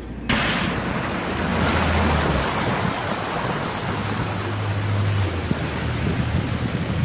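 Small motorboat pushing through floating river vegetation: a steady rushing noise with wind on the microphone and a low engine hum underneath, starting abruptly just after the beginning.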